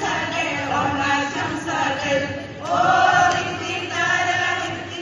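A group of women singing together from song sheets, with a louder held note a little past halfway through.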